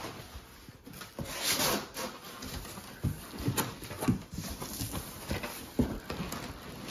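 Large cardboard shipping box being opened and handled: irregular knocks and thuds from the flaps and packing, with a brief rustling scrape about a second and a half in.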